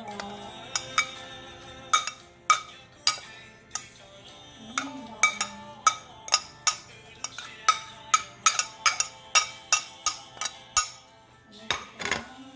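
Repeated sharp clinks of a utensil knocking and scraping on a ceramic plate as chopped herbs are pushed off it into a bowl, each clink ringing briefly and coming up to about three a second in places. Music plays underneath throughout.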